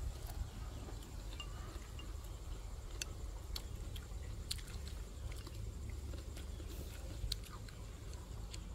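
Eating at the table: chopsticks and spoons clicking against porcelain bowls a few times, sharp and scattered, with chewing over a low steady rumble.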